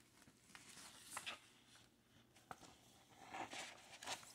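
Faint handling noise of vinyl record jackets and paper inner sleeves: a few light taps and a soft rustling slide a little after three seconds in.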